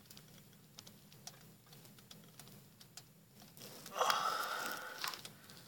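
Faint clicks from an ice-fishing rod and reel as a hooked pike is played, then a louder whir about four seconds in that lasts just over a second.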